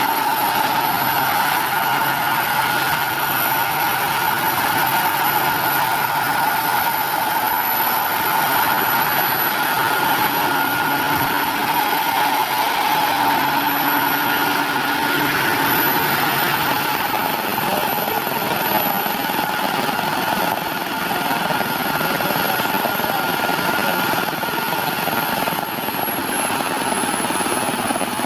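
Large radio-controlled scale helicopter running on its model gas turbine in flight: a steady high turbine whine over the rotor and engine noise. Near the end the whine dips slightly in pitch.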